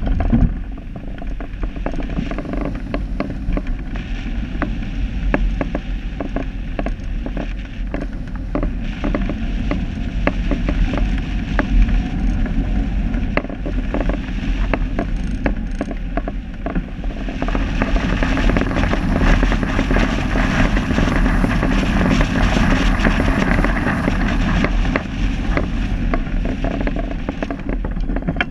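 Wind buffeting the microphone: a constant low rumble with a noisy hiss, dotted with many small clicks and creaks. It grows stronger about seventeen seconds in and eases off near the end.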